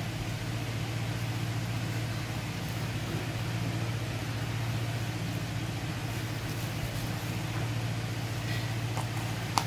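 Steady low hum under an even hiss, unchanging throughout, with a short sharp tick near the end.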